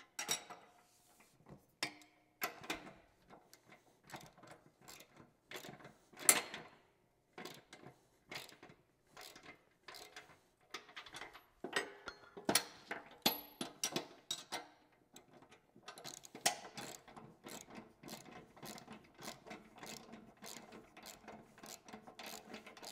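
Socket ratchet wrench clicking as it turns 19 mm bolts into a steel plow mount, the nut held with a second wrench. The clicks come in uneven short strokes with an occasional sharper metal click, then run quicker and more evenly near the end.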